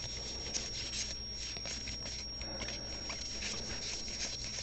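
Baseball trading cards being handled and flipped through one by one, a run of soft, light rustles and ticks.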